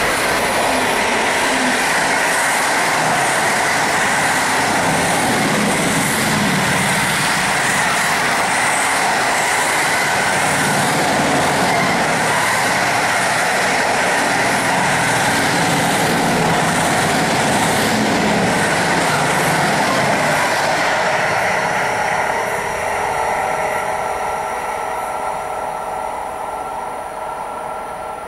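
Rolling-highway freight train of lorries on low-floor wagons passing close by, its wheels and wagons making a loud, steady rolling noise for about twenty seconds. The noise then fades as the train moves away, leaving a few steady whining tones near the end.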